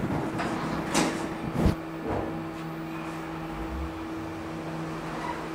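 Subway-station elevator running: its machinery hums steadily at a fixed pitch, with a couple of sharp knocks about a second in and just before two seconds.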